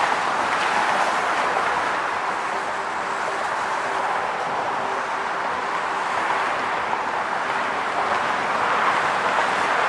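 Steady rush of passing car traffic on a bridge roadway, mostly tyre noise, with a faint steady hum through the middle few seconds.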